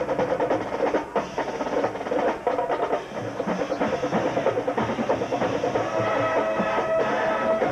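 Marching band playing: the drum line beats out fast, busy patterns, and about six seconds in the brass come in with long held notes over the drums.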